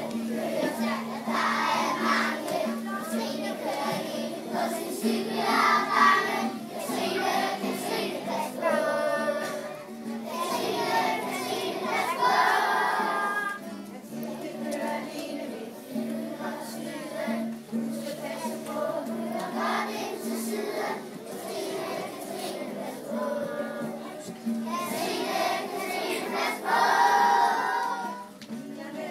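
Children's choir singing a song together, with a steady low tone held beneath the voices.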